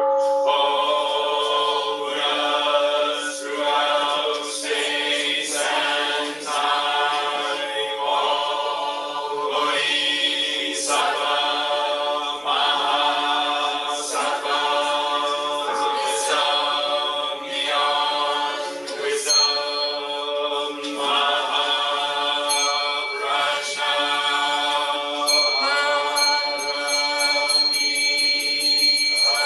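A group chanting in unison in a mix of men's and women's voices, on a steady recitation tone with held notes and regular syllable breaks.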